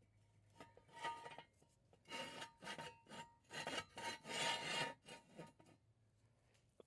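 A series of rough scraping rubs, about six strokes of a second or less each with a faint ringing edge, then stopping well before the end.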